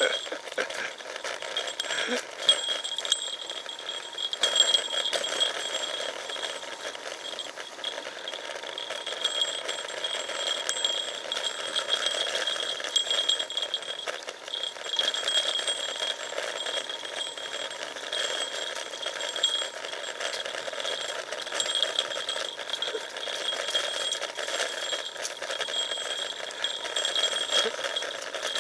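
Road bicycle coasting down a rough descent strewn with fallen leaves: a steady rattle of the bike and its handlebar-mounted gear with tyre noise, full of small rapid ticks and a thin high steady whine.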